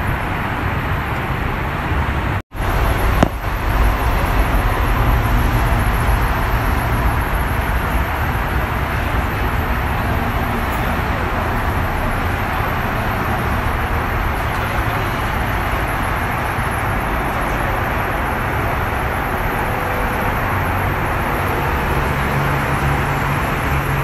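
Steady noise of road traffic going past. The sound cuts out for an instant about two and a half seconds in.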